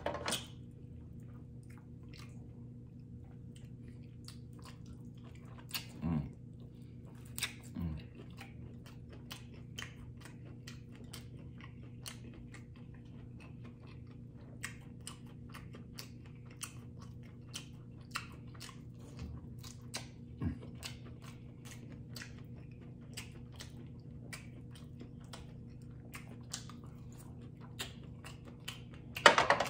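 Close-miked chewing and mouth sounds of a person eating, a dense run of small wet clicks with a few louder bites, over a steady low hum.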